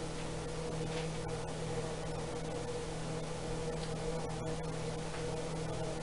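Steady electrical hum with an even hiss: room tone, with no distinct sound event.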